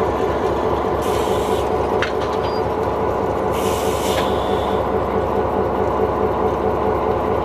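EMD SW9 switcher's 12-cylinder two-stroke diesel running steadily as the locomotive creeps forward at low speed. Two short hisses come through, about a second in and again about three and a half seconds in.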